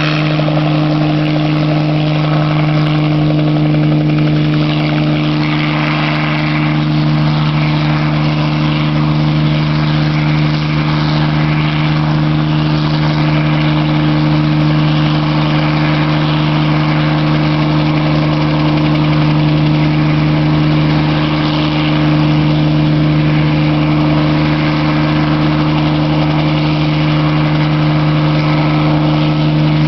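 Bell 47J-2 Ranger helicopter hovering: its air-cooled six-cylinder Lycoming piston engine and rotors make a steady, even drone with a strong low hum.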